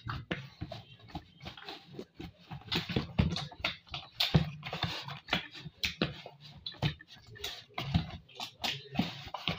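Hands kneading oiled chapati dough in a plastic bowl: a fast, irregular run of soft slaps and squishes, with knocks of hands and dough against the bowl.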